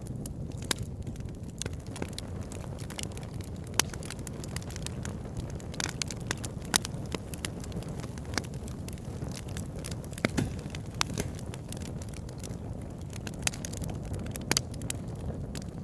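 Firewood burning in an open campfire, crackling with irregular sharp pops and snaps over a steady low rumble.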